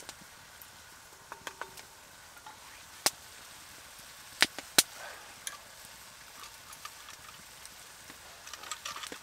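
Spruce wood fire crackling under a hanging dutch oven, a low hiss broken by scattered small crackles and three sharp pops about three to five seconds in.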